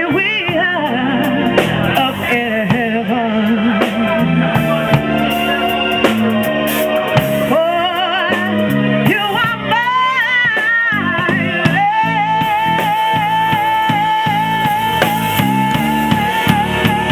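Live soul band: a woman sings a slow melody with heavy vibrato over electric bass guitar and drum kit, then holds one long high note through the last several seconds.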